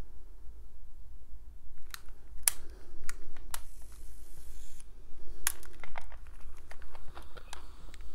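Footsteps crunching and crackling on a floor littered with fallen plaster and debris: a string of sharp cracks starting about two seconds in, over a steady low rumble.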